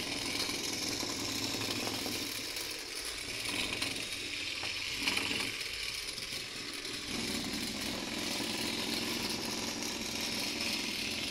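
Homemade vibration-drive rig running: a small electric motor spins an eccentric rotor through a string belt, making a steady mechanical buzz as the board vibrates on the tabletop.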